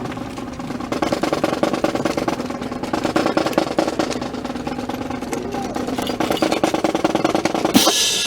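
Music with a rapid drum roll over a held, steady tone. Near the end a short, loud hissing burst cuts in.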